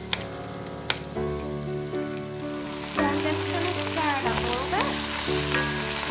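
A couple of sharp knife chops through carrot on a wooden board near the start. From about halfway through, flour-coated beef chunks sizzle as they brown in butter and olive oil in a pot, stirred with a wooden spoon. Slow background music plays underneath.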